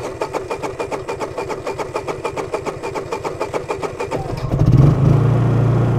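Honda EU3000is inverter generator, running on propane through a tri-fuel conversion kit, cranking with a fast, even beat for about four seconds. It then catches about four seconds in and settles into a steady run.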